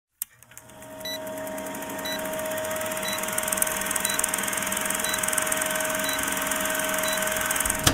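Old-film countdown leader sound effect: a rapid projector-like clatter and crackle over a steady hum, with a short high beep once a second, seven beeps in all. It fades in at the start and cuts off suddenly at the end.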